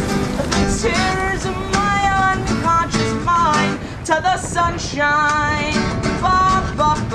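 Upbeat pop song playing, an instrumental stretch with strummed strings and a wavering lead melody over a steady beat.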